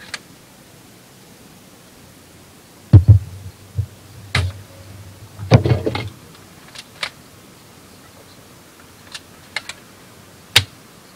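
Toy M4A1 BB gun being handled, cocked and fired: scattered sharp plastic clicks and knocks, the loudest about three seconds in and a cluster around five and a half to six seconds, with lighter clicks later.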